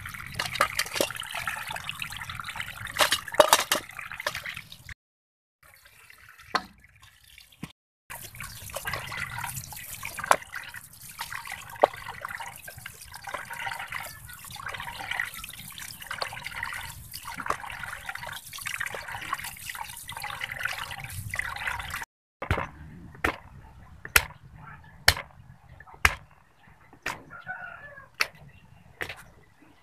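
Water sloshing and trickling as pork ribs are washed by hand in a metal wok and left to drain. Near the end, sharp knocks, about one or two a second: a knife blade pressed and struck down on garlic cloves on a wooden chopping board, crushing them.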